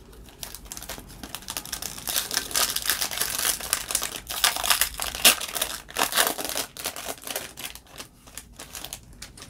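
Foil wrapper of a Topps baseball card pack crinkling and tearing as it is pulled open by hand: dense crackling, loudest through the middle few seconds and thinning near the end.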